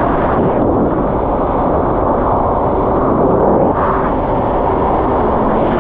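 Yamaha GP1800R SVHO personal watercraft's supercharged four-cylinder engine running steadily under way, mixed with water rush and wind noise on the camera microphone.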